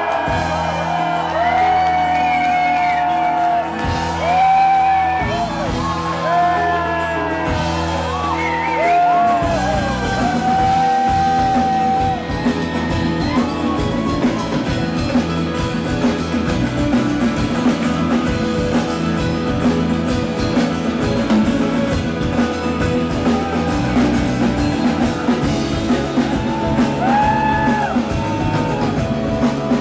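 Live rock band playing an instrumental break in a large hall, with voices singing and whooping over it. About ten seconds in, the band thickens into a fuller, driving rhythm.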